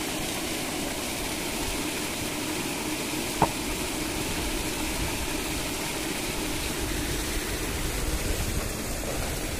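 Paddlewheel aerators running on a shrimp pond: a steady mechanical hum over churning, splashing water. A single sharp click about three and a half seconds in.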